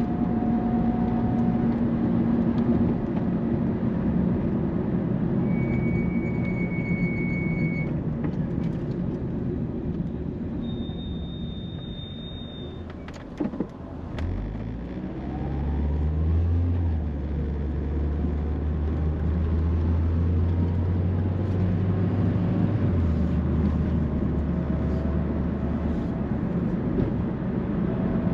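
Road and engine noise of a car driving, heard from inside the cabin: a steady low rumble that eases off about halfway, then picks up again with a deep steady drone as the car gets going.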